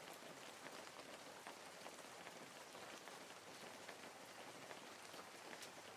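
Wood fire crackling in a fireplace: a steady soft hiss of burning wood with frequent small, irregular pops and snaps.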